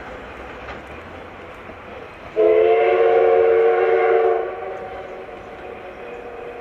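Locomotive whistle sounding one steady chord for about two seconds, starting abruptly a couple of seconds in and then dying away, over the running noise of a passing train.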